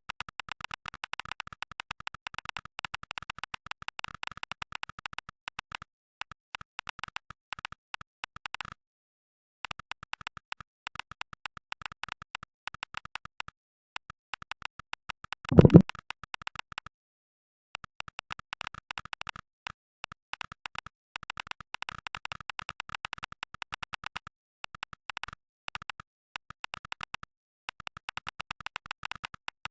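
Fast typing on mechanical keyboard switches: a rapid run of keystroke clicks, each one a recorded sample of Gateron Black Ink linear switches played back by Mechvibes. The typing stops briefly a few times, and one much louder, deeper thud comes about halfway through.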